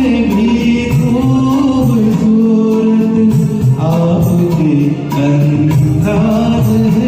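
A Hindi film song sung with instrumental accompaniment, a held, gliding vocal melody over the music.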